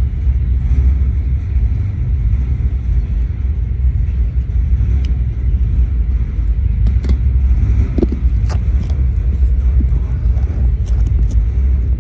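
Propane roofing torch running with a steady roar while it heats a roofing patch, with a few light clicks and taps about two-thirds of the way through.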